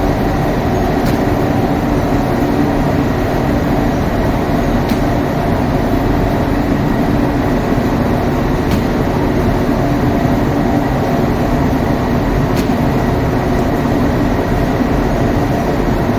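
Steady, loud machine drone with a constant hum, unchanging throughout, with a faint tick every three to four seconds.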